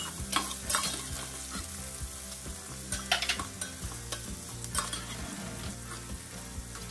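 Chopped bitter gourd (karela) shallow-frying in hot oil in a steel pot, sizzling steadily as it is fried toward light brown. A metal spoon stirs it, with a few sharp clicks and scrapes against the pot.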